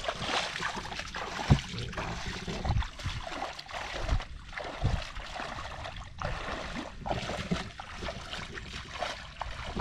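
Water sloshing and splashing, with irregular dull knocks, the loudest about a second and a half in.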